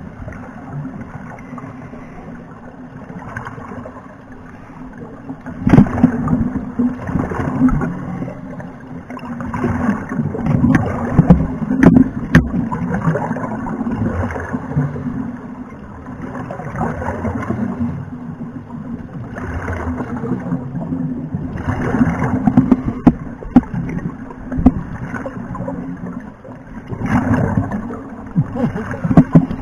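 Scuba breathing heard underwater: a diver's exhaled bubbles gurgle and rumble through the regulator in muffled bursts of one to three seconds, repeating every few seconds.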